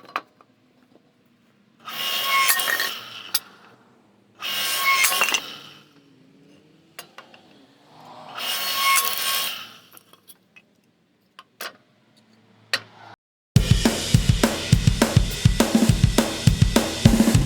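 Three separate noisy bursts of work noise, each about a second and a half long, with scattered clicks between them. About three-quarters of the way in, loud heavy rock music starts abruptly.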